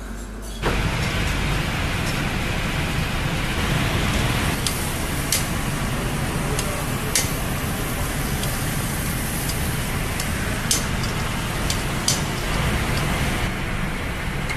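Steaks sizzling on a charcoal grill, a steady hiss with a few sharp crackles, over a steady low rumble; it starts suddenly about half a second in.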